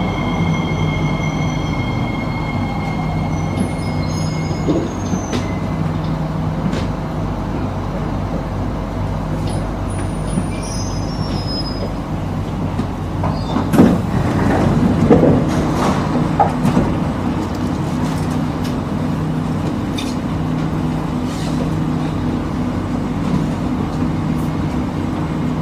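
Inside a Singapore MRT subway train as it pulls into an underground station and stops: a steady low hum and rumble of the train, with a high whine that fades out in the first seconds. About halfway through comes a short, louder cluster of knocks and sliding, squealing sounds.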